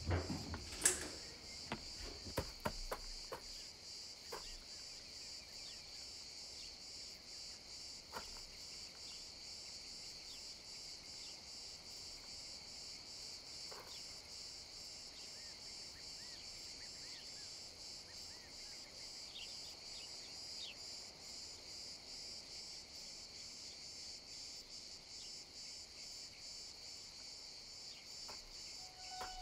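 Insects chirping in a steady, even, high-pitched pulse, with a few soft knocks in the first few seconds.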